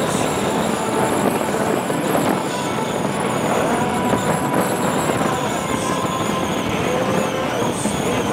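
Harley-Davidson Sportster 1200's air-cooled V-twin running at road speed with steady wind rush over the microphone, the two dominating the sound. Faint music from the handlebar-mounted speakers is barely heard above them.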